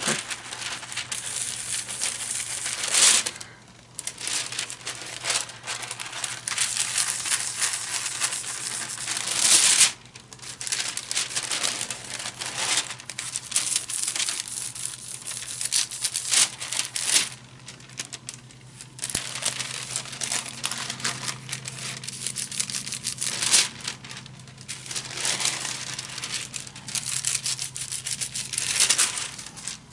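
A sheet of paper rubbed by hand over a gel printing plate to lift off wet paint, rustling and crinkling in repeated irregular strokes, with louder swipes about three and ten seconds in.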